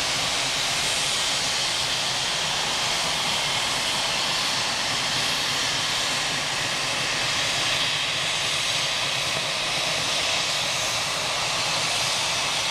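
Steam locomotive venting steam: a steady, loud hiss with no exhaust beat.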